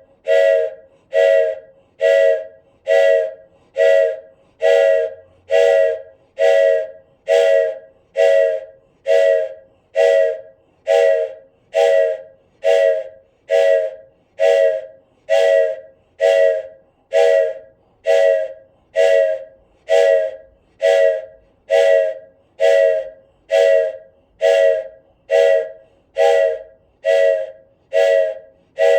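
Wooden train whistle sounding in short, evenly spaced toots in a steady rhythm, each toot a chord of several notes that starts sharply and quickly fades.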